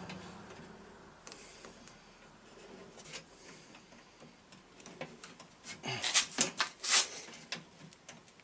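Scattered small clicks and rattles of hands handling the microwave's wiring and metal parts, bunching together about six to seven seconds in.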